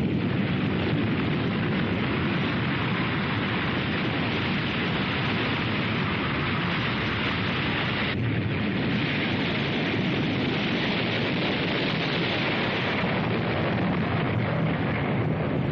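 Animated tsunami sound effect: a dense, steady rush of surging water noise, changing briefly about eight seconds in.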